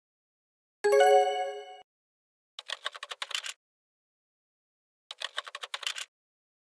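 Title-card sound effects: a single chime that rings and fades about a second in, then two short bursts of rapid keyboard-typing clicks, each lasting about a second.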